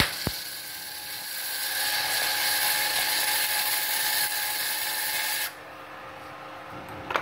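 Gasless flux-core MIG welding arc from a Multipro MIG-MMA/TIG 160 A-SC inverter welder, running steadily and cutting off suddenly about five and a half seconds in. The torch is on positive and the ground clamp on negative, the wrong polarity for gasless wire, which leaves a poor weld covered in beads of incompletely melted wire.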